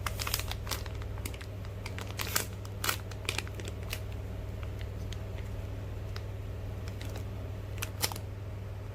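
Light plastic crinkling and small clicks from a squishy toy and its packaging being handled, busiest in the first few seconds and again near the end, over a steady low hum.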